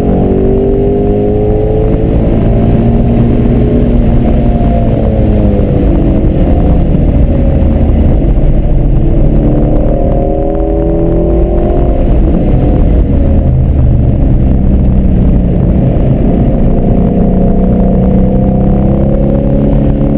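Shelby GT350's 5.2-litre flat-plane-crank V8 driven hard on a race track, heard from inside the cabin. It is loud, and its pitch climbs and falls over and over as the car accelerates, changes gear and lifts for corners.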